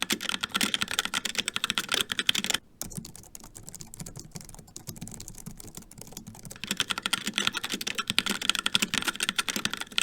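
Fast typing on a HyperX Alloy Origins mechanical keyboard with HyperX Red linear switches: a dense run of key clacks. After a brief pause about two and a half seconds in, the typing turns quieter and duller for a few seconds, then goes back to full, bright clacking about two-thirds of the way through.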